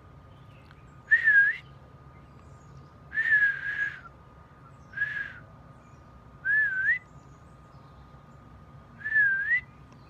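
A person whistling five short notes a second or two apart, each wavering or sweeping up in pitch, with the hiss of breath through the lips.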